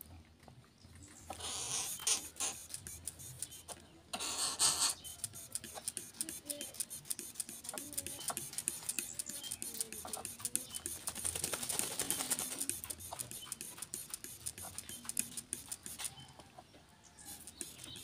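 Greater coucal bathing in a shallow puddle, splashing water and fluttering its wet wings: two short bursts of splashing, then a longer run of fine pattering splashes that fades near the end.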